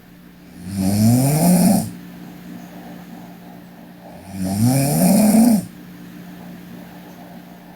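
A sleeping girl snoring: two loud snores about three and a half seconds apart, each lasting about a second and rising in pitch.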